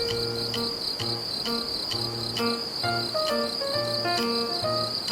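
Crickets trilling in one steady, high, unbroken band, over soft background music of held notes with a recurring bass.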